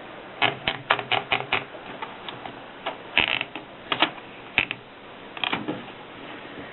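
Keys of a 1939 Erika 5 portable typewriter being struck: a quick run of about six keystrokes, then slower, scattered strokes with pauses between them, one louder stroke about three seconds in.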